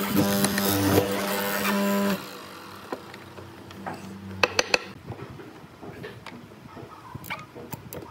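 Benchtop hollow-chisel mortiser running with a steady hum as the chisel plunges into the wood. The motor sound cuts off abruptly about two seconds in. Then come quieter handling sounds of the timber workpiece, with a few sharp knocks about halfway through.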